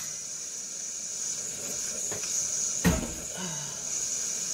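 Eggs frying in a covered nonstick pan, sizzling with a steady high hiss. A single sharp knock about three seconds in.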